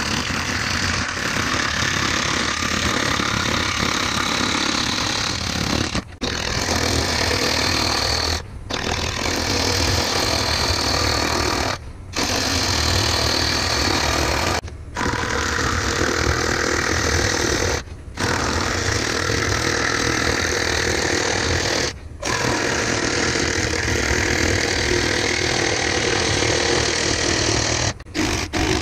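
Wood lathe spinning a wooden blank while a long steel turning tool cuts into it: a steady, rattling scrape over the lathe's running. It cuts out briefly about seven times.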